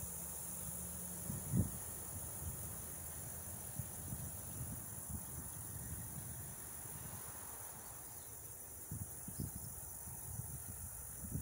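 Steady high-pitched chirring of insects such as crickets, with a few low thumps of wind or handling on the microphone, the loudest about a second and a half in.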